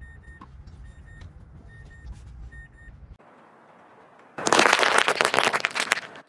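Car tyre rolling over a pile of cherry tomatoes, bursting and crushing them in a loud, dense run of pops and crackles lasting about a second and a half. Before it, a low steady car rumble with a few short high beeps.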